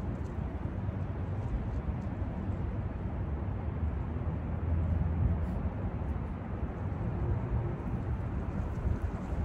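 Wind buffeting an outdoor microphone: a steady, gusty low rumble, a little stronger around the middle.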